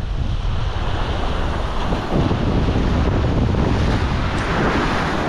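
Sea waves breaking and washing over a rocky shoreline, a steady surf wash that swells louder near the end, with wind rumbling on the microphone.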